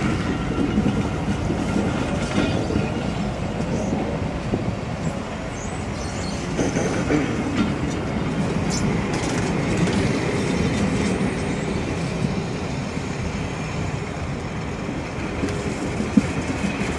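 Railway passenger coaches rolling past, their wheels rumbling and clicking over the rail joints.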